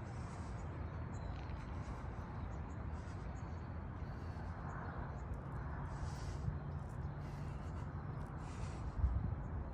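A man breathing hard and letting out a long low groan from the strain of holding a deep horse-stance squat, with a short thump near the end, over steady background noise.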